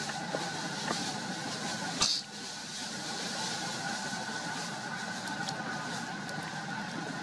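Steady outdoor background noise with a faint held high tone, a few small ticks, and one sharp click about two seconds in.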